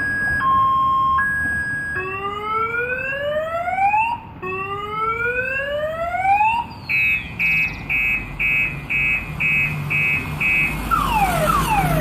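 Car alarm siren cycling through its patterns: a two-tone warble, then two long rising whoops, then about eight evenly spaced beeps, then quick falling sweeps near the end.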